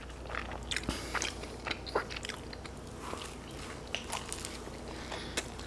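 Close-miked biting and chewing of pizza crust: irregular crunches and wet mouth clicks, with no speech.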